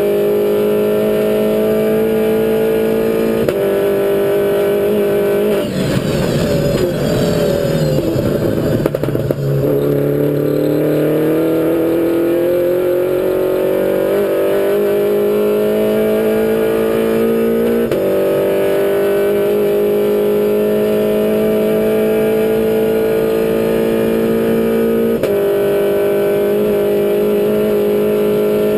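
Mini Cooper race car's engine at racing revs, heard from inside the cockpit. About six seconds in the pitch drops through a brief rough, rattly patch, then climbs steadily, with small steps in pitch around eighteen and twenty-five seconds.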